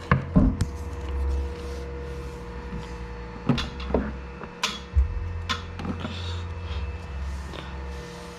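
Scattered sharp clicks and knocks of hands fitting Ethercon connectors into a tight rack panel, with rumbling handling noise, over a faint steady hum.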